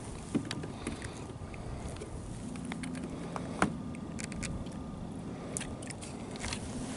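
Scattered small clicks and knocks of fishing tackle being handled in a kayak, over a low steady rumble. A sharper knock comes about three and a half seconds in.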